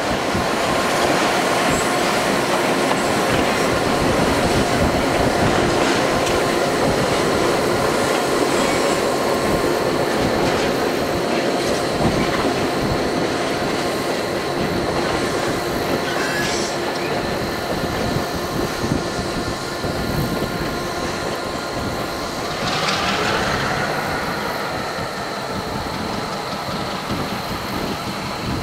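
A train of empty autorack cars rolling slowly past, with wheels squealing and clacking over rail joints. About halfway through, the two EMD diesel locomotives shoving at the rear, a GP7 and an FP9A, pass by with their engines running.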